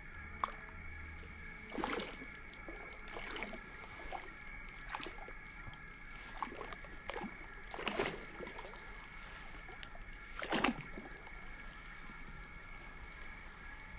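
Irregular splashing in shallow rainwater in a rice paddy, with the biggest splashes about 2, 8 and 10.5 seconds in.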